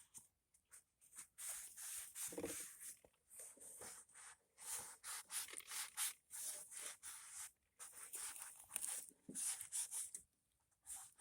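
Irregular, scratchy wiping strokes on the DR woodchipper's body as it is cleaned, coming in quick bursts with short pauses between them. A brief lower-pitched sound stands out about two and a half seconds in.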